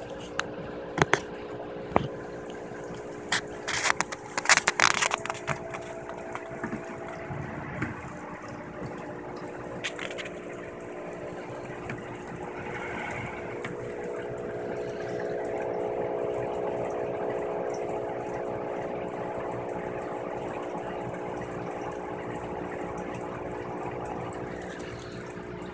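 A steady machine hum of several held tones with a light hiss, growing a little louder about halfway through. In the first five seconds a scatter of sharp clicks and knocks sits over it.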